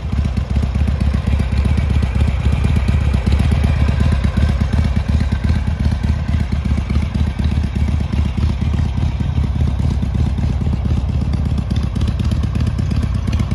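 Harley-Davidson Sportster XLH 883's air-cooled 883 cc V-twin engine idling steadily, a loud low-pitched engine sound with a quick pulsing beat.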